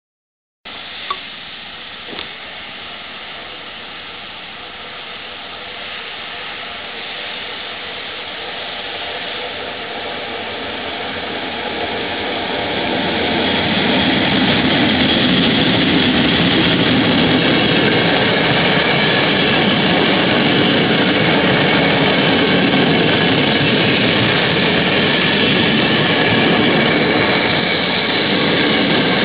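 Heavy engine running steadily, cutting in abruptly just under a second in, then growing louder over the next dozen seconds before holding steady. Two brief knocks come about one and two seconds in.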